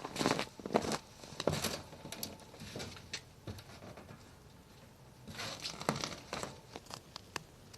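Dry kindling rustling and crinkling with scattered sharp snaps and crackles in irregular bursts. The sound is busiest near the start and again about five to six seconds in.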